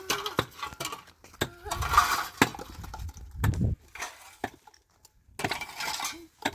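Irregular sharp clinks and knocks of hard objects striking one another. Two noisier scraping stretches come about two seconds and three and a half seconds in.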